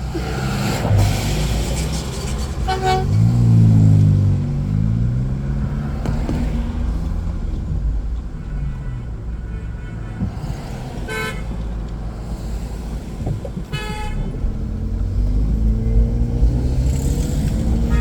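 Car horns tooting in road traffic, three short blasts, over the steady low rumble of a vehicle running, with an engine revving up and down early on.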